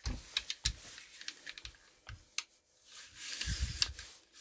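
Light clicks, taps and handling rubs as a field-stripped Draco AK-47 pistol is picked up and handled on a rubber gun-cleaning mat, with a sharper knock near the end.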